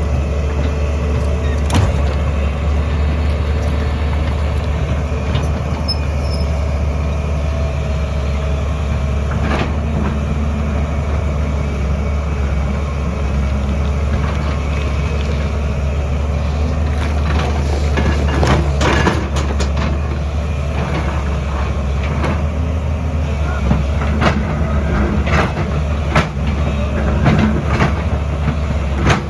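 Excavator engine running steadily with a deep drone, with scattered knocks and clanks, more of them in the second half.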